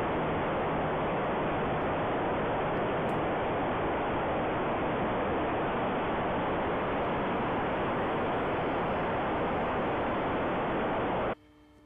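Steady loud rush of airflow and propeller noise from a camera mounted on a radio-controlled model Cessna 152 in flight, powered by a brushless electric motor. The sound cuts off abruptly near the end.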